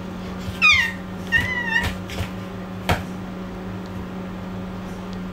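A baby's high-pitched squeals: a short falling squeal, then a longer one just after, followed by a sharp tap about three seconds in.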